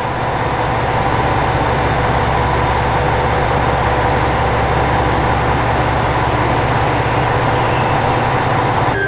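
JR Shikoku 2000 series diesel railcar idling at the platform, its diesel engines running with a steady low rumble.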